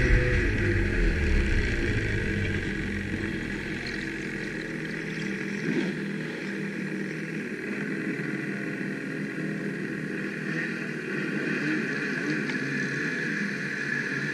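Ski-Doo snowmobile engines idling steadily. In the first couple of seconds the riding sled's engine winds down as it comes to a stop.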